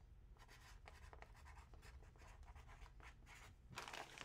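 Faint scratching and rustling from hands working close to the microphone, a rapid run of light strokes, with a louder rustle near the end.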